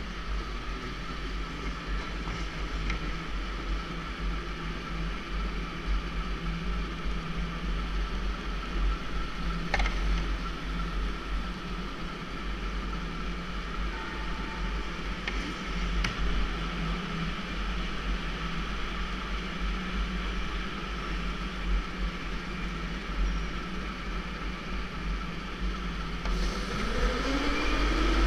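Electric go-kart running along an indoor track, heard from on board: a steady motor whine over the rumble of the chassis and tyres, with the pitch rising and the sound growing louder near the end as the kart accelerates.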